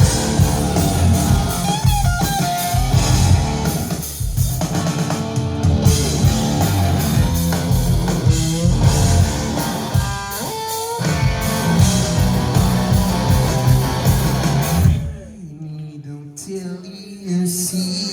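Live rock band playing loud, with electric guitars and a drum kit. About three seconds before the end the drums and low end drop out, leaving a much quieter, sparser passage.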